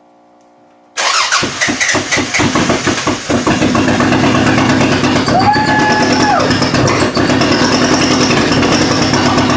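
A Toyota Camry demolition derby car's engine firing about a second in, sputtering and uneven for the first few seconds, then running loud and steady, with a short squeal about five seconds in. The exhaust is probably loaded with fuel from the failed starts.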